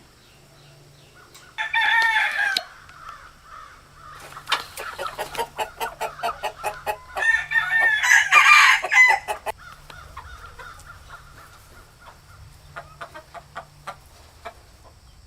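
Rooster crowing twice: a short crow about two seconds in and a longer, louder crow about seven seconds in, with a run of quick clucks between them.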